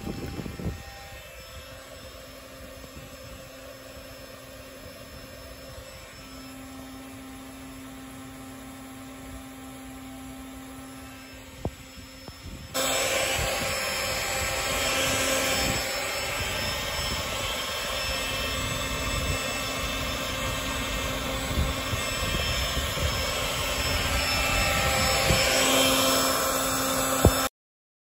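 Small electric air pump running, blowing air into an exhaust through a cup over the tailpipe to pressurise it for a soap-bubble leak test: a steady hum with rushing air. About halfway through it becomes much louder, and it cuts off suddenly just before the end.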